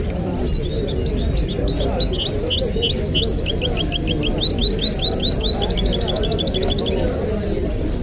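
A caged European goldfinch singing: a run of high, quick, repeated notes that comes faster in the second half and stops about a second before the end, over the low murmur of a crowd.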